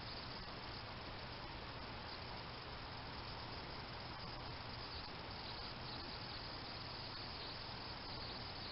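Crickets chirping steadily at night, heard over the steady hiss of a trail camera's microphone.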